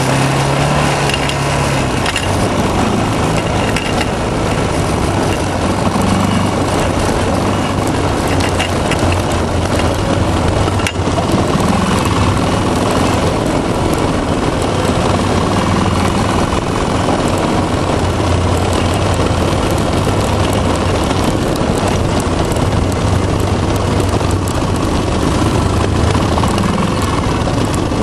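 Honda TRX 350 ATV's single-cylinder four-stroke engine running steadily as the quad rides downhill through powder snow, its low drone under a constant loud rush of wind and vehicle noise.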